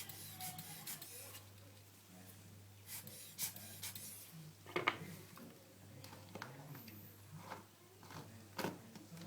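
Light scraping, rubbing and scattered clicks of a tool working at a termite-damaged plasterboard wall, with a few sharper knocks, over a faint steady low hum.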